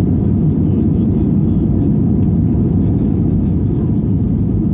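Steady low rumble of a passenger airplane's engines and airflow, heard from inside the cabin after takeoff.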